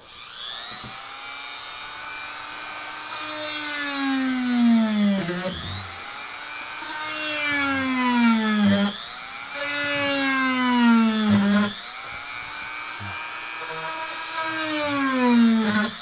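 Dremel rotary tool switching on and spinning a 1/8-inch drill bit to bore out holes in a circuit board. It makes a high motor whine that sags in pitch four times as the bit bites into the board, recovering between cuts.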